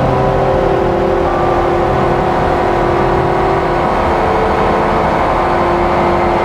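Slowly evolving electronic drone from a Make Noise Strega synthesizer and a Meng Qi Wingie, layered with looped drones: a dense low rumble under several held tones that shift and swap over a few seconds.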